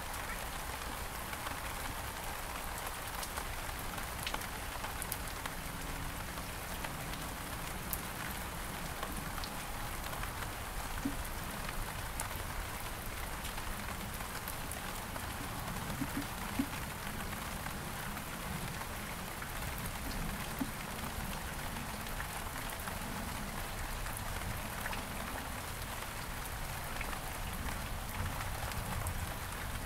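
Steady rain falling on several kinds of surfaces, with scattered individual drops ticking sharply through the even hiss.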